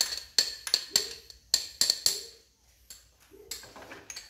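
Garlic cloves dropping one after another into an empty stainless steel pot, each landing as a sharp tap with a metallic ring. About seven come in quick succession in the first two seconds, then a few fainter ones.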